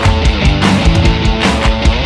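Loud rock music with distorted guitars and a driving drum beat.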